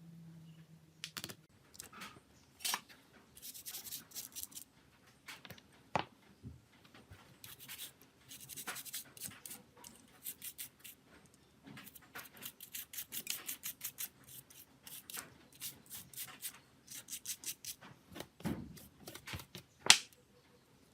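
Small hand-work on a mobile phone's parts: flurries of quick, short scraping strokes and light clicks, with one sharp click near the end.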